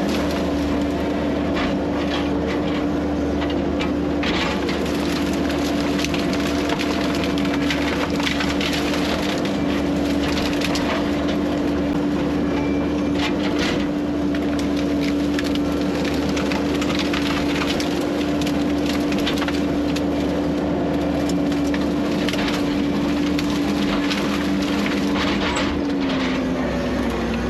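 A heavy earth-moving machine's diesel engine runs steadily under load while wood cracks, splinters and snaps as logs and trees are pushed and crushed. The engine pitch dips briefly near the end.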